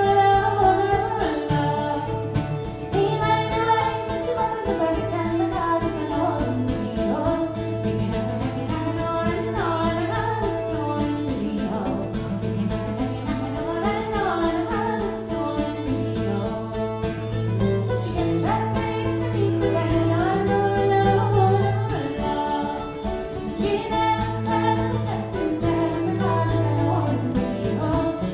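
Irish traditional folk band playing live: plucked strings over a steady low tone, with a voice singing. The music eases briefly a little before the end.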